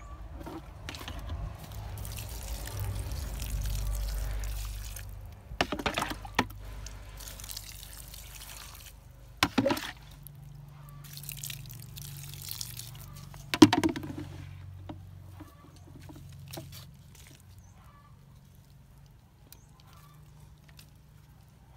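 Water being poured onto a newly planted strawberry plant in soil, splashing and trickling, mostly in the first half. Three sharp knocks from handling come through, the last the loudest.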